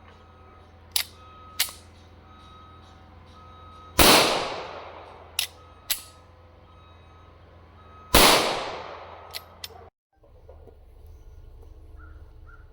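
Two pistol shots about four seconds apart from a Smith & Wesson M&P 2.0 10mm firing CCI .40 S&W Pest Control shot shells, each echoing away, with a few light sharp clicks between them.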